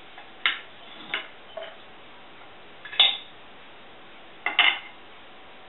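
Steel knife and fork clinking and scraping against a serving platter while cutting food: a few separate clicks in the first couple of seconds, the loudest clink about three seconds in, and a quick pair or triple of clinks near the end.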